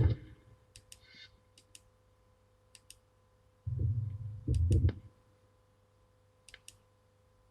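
Scattered sharp clicks and two short dull thuds about four and five seconds in, over a faint steady electrical hum.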